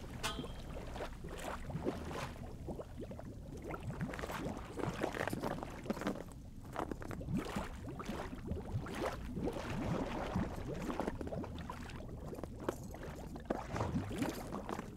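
Water lapping and sloshing in a hole cut in lake ice, slapping against a floating freediving buoy in many small, irregular splashes.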